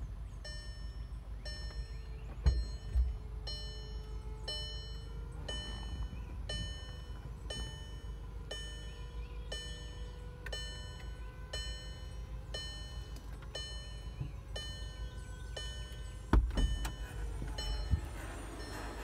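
Volkswagen Eos's power folding hardtop closing: its electric-hydraulic pump hums steadily while the dashboard warning chime sounds about once a second. A clunk comes a couple of seconds in, and a heavier clunk near the end as the roof panels swing into place.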